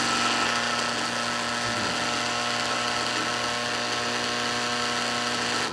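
Shoreline 600-gallon-per-hour bilge pump motor, converted into a propeller thruster, running dry in air with its leads swapped so it spins in reverse, drawing about one amp. It runs at a steady speed and cuts off abruptly at the end.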